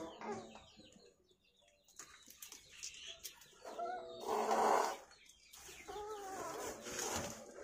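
Domestic chickens clucking in a few short pitched calls. The loudest comes about four seconds in, over a rough hiss.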